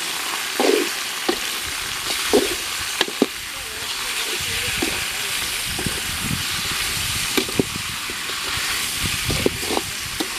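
Raw chicken pieces sizzling in a metal pot while a perforated steel ladle stirs them. The ladle scrapes and knocks against the pot every second or two over the steady sizzle.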